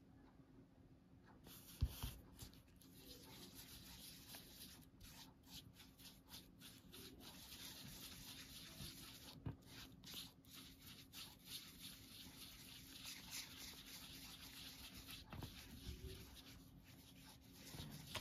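Faint scratchy rubbing of a paintbrush swirling thick paint around on a sheet of paper, mixing green into blue. There is a single sharp knock about two seconds in.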